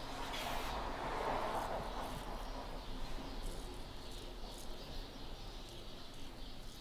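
Straight razor scraping lathered stubble on a man's neck: a faint, scratchy rasp in short strokes.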